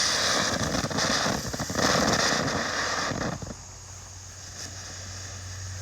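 Ground firework going off with a dense hissing, crackling spray that stops abruptly about three and a half seconds in, leaving a low steady hum.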